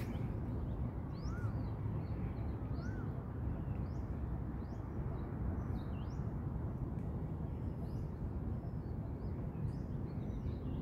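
Small birds chirping in short, high notes again and again, with two brief rising-and-falling whistled calls about one and three seconds in, over a steady low rumble.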